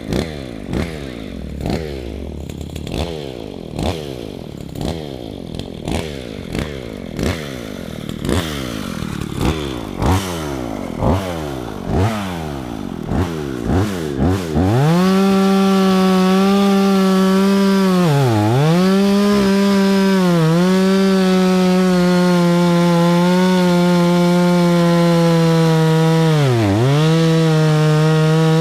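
Two-stroke chainsaw revved in short, quick bursts, about one a second, for the first half. It is then held at full throttle with a steady high note whose pitch drops sharply three times for a moment.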